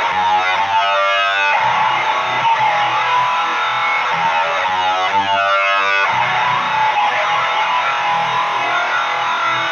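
Heavily distorted electric guitar in B standard tuning through a Boss HM-2 boosted by a Boss SD-1 into a Jet City JCA22H valve amp: the buzzing HM-2 "chainsaw" tone. Riffing, with a held chord ringing out about half a second in and another around four to six seconds in.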